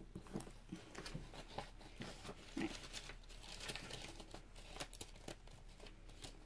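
Paperback book pages being leafed through by hand: faint, irregular paper rustling and crinkling with small clicks.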